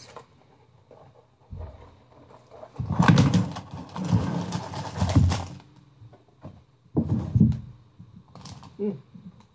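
A Lego set's cardboard box being opened and its contents dumped out. The loudest part is a rustling, clattering slide of plastic bags of pieces lasting about two and a half seconds, with shorter rustles and knocks of the box being handled before and after.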